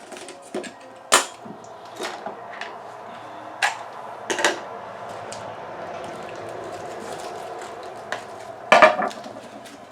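Utility knife cutting and scraping through the plastic outer sheath of a thick aluminium power cable, with a few sharp knocks and clicks between strokes, the loudest near the end.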